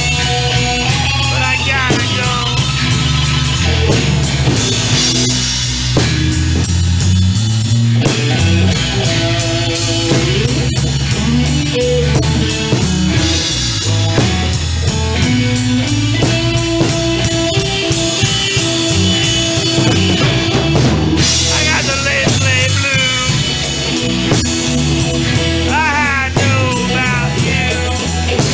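Blues-rock band playing: drum kit, bass guitar and electric guitars over a steady driving beat.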